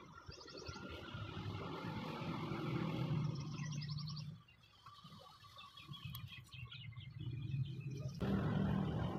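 Music plays, with bursts of fast, high bird chirping. Just past eight seconds a louder, steady rushing noise comes in suddenly.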